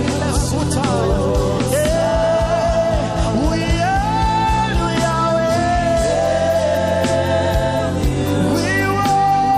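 Gospel worship song: a voice sings long held notes over a band, with keyboard-like sustained chords and a steady drum beat underneath.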